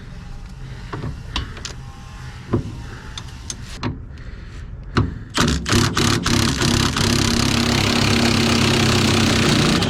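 A few sharp metallic clicks and taps as a socket is worked onto a rear lower control arm bolt. About five seconds in, a power impact wrench starts hammering steadily on the bolt and keeps going.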